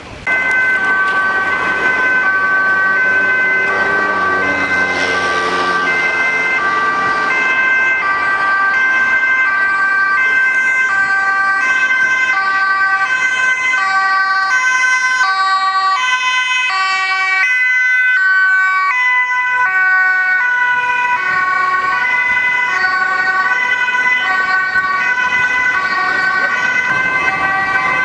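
Dutch emergency-vehicle two-tone sirens, more than one sounding at once, switching back and forth between high and low tones every half second or so without a break. They start suddenly.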